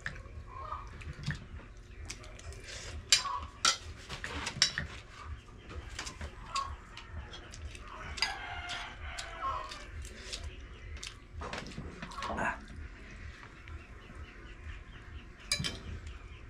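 Chickens clucking and a rooster crowing, with a longer crow around the middle. Sharp clinks of spoons on plates are scattered throughout.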